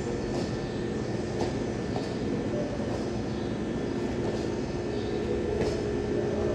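Steady low rumbling background noise with a faint hum, broken by a few faint sharp snaps.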